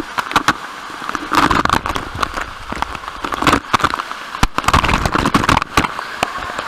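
Waterfall water pouring and splashing straight onto the microphone: a steady rush with many sharp crackling droplet hits, and two louder surges of spray, about a second and a half in and again around five seconds.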